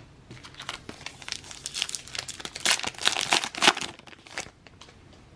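Crinkly card-pack wrapper being torn open and crumpled by hand, a dense run of crackles that is thickest in the middle and dies away near the end.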